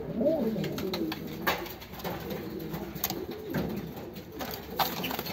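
Several domestic pigeons cooing. Their low, wavering coos overlap, and a few sharp taps are mixed in.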